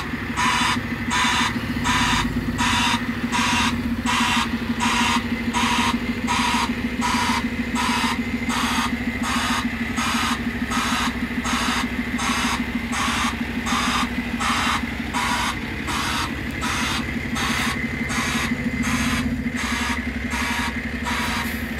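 DAF food waste truck tipping its body to empty the load: the engine and hydraulics run with a steady hum while a warning alarm beeps about twice a second.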